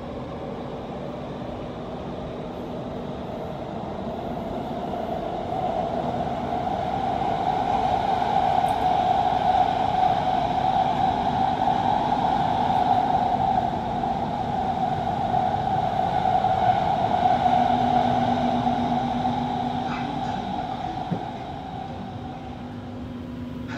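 Qatar metro train running between stations, heard inside the passenger car: a steady rolling rumble and hum that grows louder through the middle and eases off near the end.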